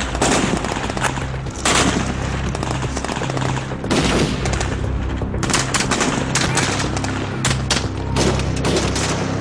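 Gunfire: repeated rifle shots and rapid bursts, over a low droning music score.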